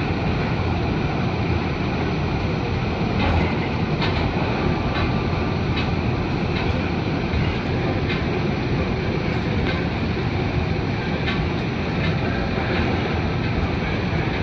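Inside an R46 subway car running through a tunnel: a steady, loud rumble of the wheels on the rails, with scattered sharp clicks every second or so.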